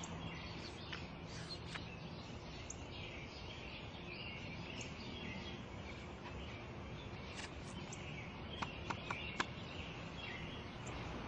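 Outdoor ambience of small birds chirping over a steady background hiss, with a few sharper, louder chirps about nine seconds in.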